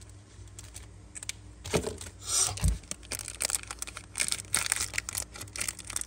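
A Zippo lighter being handled: irregular sharp clicks, a stretch of rustling and one dull knock.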